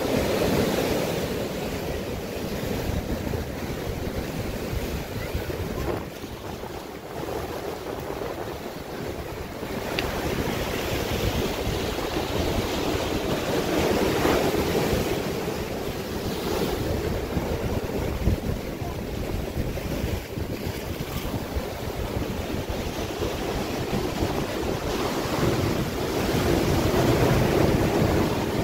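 Ocean surf breaking on rocks and washing up a sandy shore, a steady rushing that swells louder as each big wave breaks: near the start, about halfway through and near the end.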